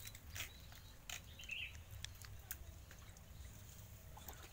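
Faint outdoor ambience: scattered light clicks and ticks over a steady low rumble, with one short high chirp about one and a half seconds in.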